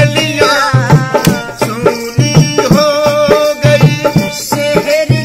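Indian folk song performed with voices singing over a hand-played dholak drum keeping the beat and a harmonium playing the melody.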